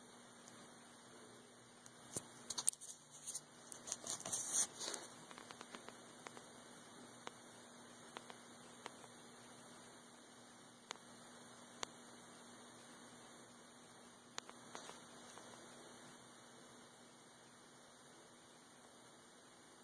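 A faint steady electrical hum, with scattered light clicks and a flurry of clicks and rustles between about two and five seconds in.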